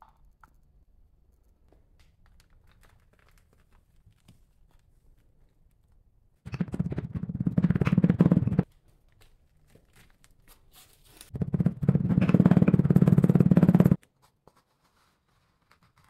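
Hand rammer pounding damp green foundry sand into a small metal casting flask, in two bouts of rapid strikes: one about two seconds long, the other about three. Between them, faint scraping and handling of the sand.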